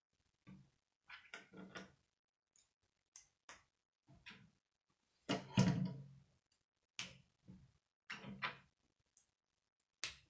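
K'nex plastic rods and connectors being handled and snapped together: a series of separate short clicks and rattles, the loudest a little past halfway.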